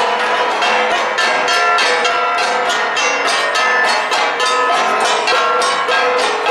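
Ensemble of Igorot gangsa (flat gongs) struck in a fast, even interlocking rhythm of several strokes a second, the ringing tones overlapping into a continuous metallic clangour.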